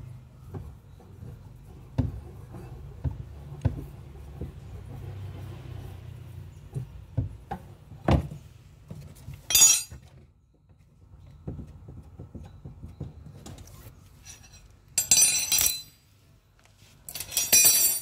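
Hand tools and metal fasteners clicking, knocking and clinking while the bolt and nut on the spin-dryer motor pulley of a twin-tub washing machine are undone. Short bursts of metallic rattling come about halfway through and twice near the end.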